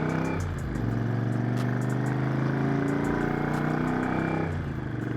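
Motorcycle engine running on the move, its pitch dropping sharply twice, about half a second in and again near the end, as gears are changed.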